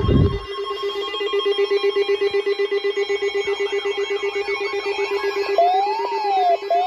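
Electronic emergency alert tones: a steady, rapidly pulsing buzz-like ring, joined about five and a half seconds in by a rising-and-falling siren-like sweep, repeated about once a second.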